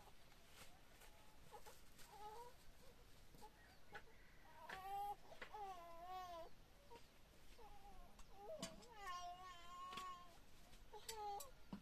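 Faint baby crying: a series of wavering, pitched cries, each from half a second to over a second long, with short pauses between them.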